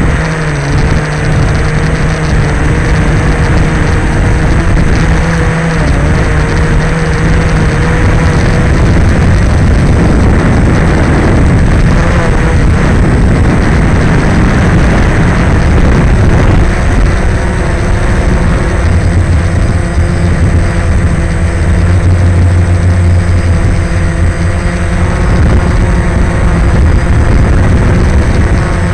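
DJI Phantom quadcopter's four motors and propellers buzzing, heard from the camera on board, over a steady rush of air. The hum holds several tones that waver and change pitch, settling lower in the second half.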